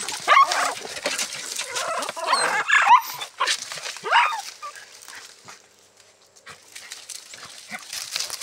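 Dogs yelping and whining excitedly, a run of sharp calls in the first half, then quieter.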